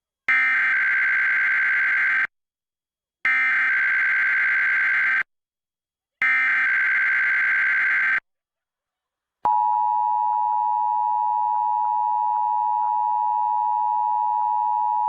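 Emergency Alert System SAME header: three identical bursts of screechy digital data tones, about two seconds each and a second apart. About nine seconds in, the EAS attention signal starts: two tones sounded together at 853 and 960 Hz, held steady and loud. This is the opening of a Required Monthly Test of the alert system.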